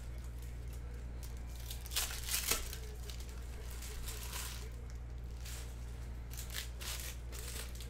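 Foil trading-card pack wrappers being torn open and crinkled in a few short rustling bursts, the loudest about two seconds in, over a steady low hum.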